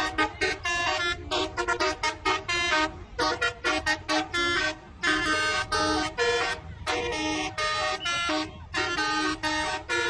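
A bus's telolet horn, a set of air horns, playing a fast tune of short tooting notes, several a second, with a few longer held notes in the middle.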